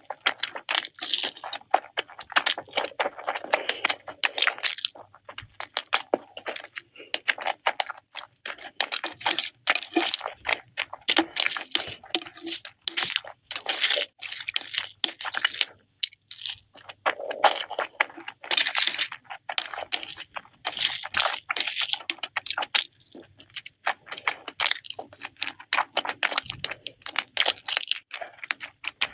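Close-miked eating: continual crunching and chewing of crisp food, a dense stream of crackles and wet clicks with brief pauses.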